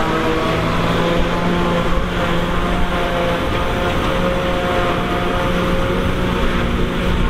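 Massey Ferguson 2640 diesel tractor working under load, driving a JF trailed forage harvester that chops grass and blows it into a trailer, with a second tractor running alongside. The machinery noise is steady, with a constant droning hum.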